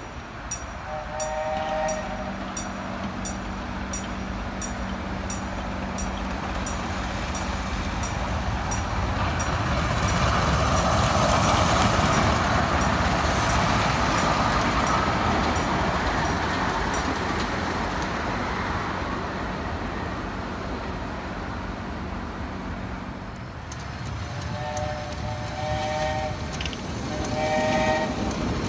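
Little Puffer, a 1905 Cagney Brothers miniature steam locomotive, gives a short chord-like whistle near the start, runs past with its train of cars, loudest about halfway through, and sounds three short whistle blasts near the end. A level-crossing bell dings about twice a second through the first half.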